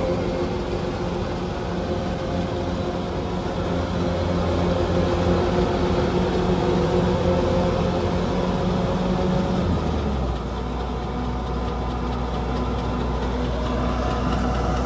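Kubota DC-105X combine harvester's diesel engine and threshing gear running steadily while it cuts rice; the engine note drops slightly about ten seconds in.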